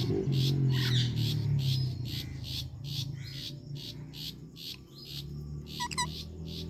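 Parakeets chirping: a fast even run of short high chirps, with a pair of sharper call notes near the end. A low steady hum runs underneath, loudest in the first two seconds.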